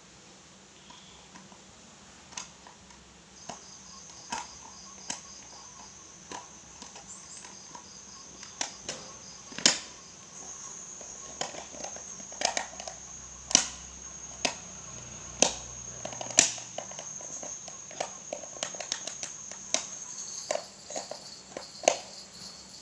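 A clear plastic food container and its lid being pressed and fumbled by hand. The plastic gives irregular clicks, taps and knocks that come faster and louder from about eight seconds in, as the lid is pushed on but won't snap shut.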